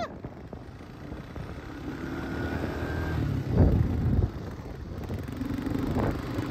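Quad bike (ATV) engine running with a steady low rumble, with a brief louder burst about halfway through.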